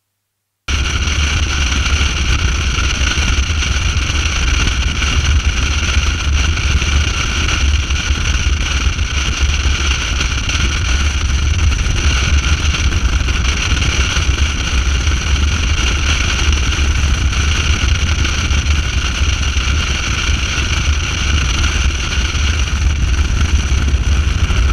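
Cruiser motorcycle at highway speed heard from the rider's camera: loud, steady wind buffeting on the microphone over engine and road noise. It cuts in abruptly just under a second in.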